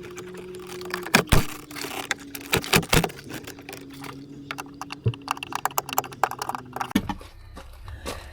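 Hand tools clicking and clinking against metal while screws are worked out of a car door's handle mechanism, a rapid run of small clicks in the middle. A steady low hum underneath stops about seven seconds in.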